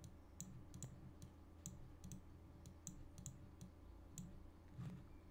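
About seven faint computer mouse clicks, several in pairs less than half a second apart, over near-silent room tone.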